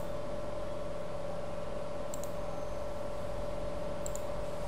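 Computer mouse clicking, a short double tick about two seconds in and again about four seconds in, over a steady electrical hum and hiss.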